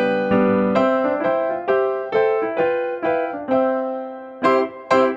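Background music: a gentle keyboard melody of struck, piano-like notes, roughly two notes a second, each ringing and fading.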